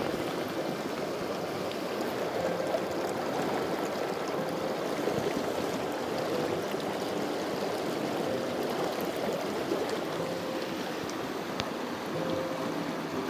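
Shallow mountain creek running over rocks: a steady rush of flowing water.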